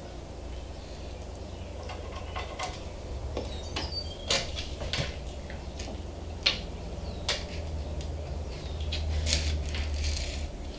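Scattered light clicks and taps of tools and small parts being handled on a workbench, over a steady low hum.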